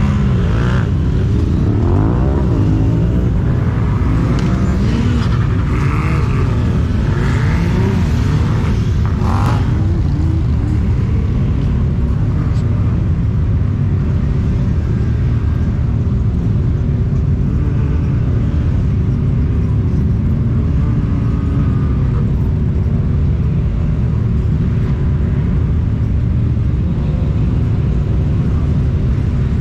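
UTV engine running under way on sand dunes, its revs rising and falling over the first ten seconds and then holding steadier.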